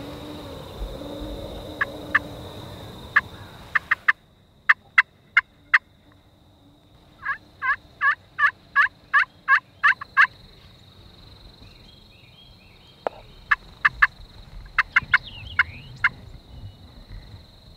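Turkey yelps: a run of about nine evenly spaced notes, about three a second, with scattered sharp clicking notes before and after. A steady high insect drone runs beneath.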